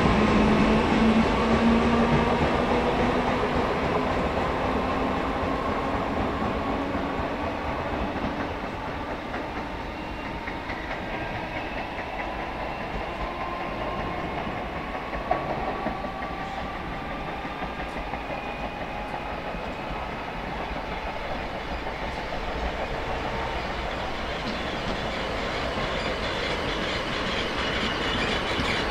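An electric multiple unit accelerates away, its traction motor whine rising in pitch and fading. Then a pair of Class 365 electric units draws in to stop, the rumble and wheel clatter over rail joints growing louder near the end.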